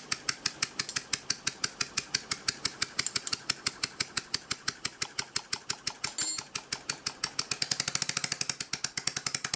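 Dismantled Copeland Compliant scroll compressor, its housing open, running slowly: a steady ticking of about five or six beats a second that quickens near the end as a low hum comes up with it. A single metallic clink about six seconds in.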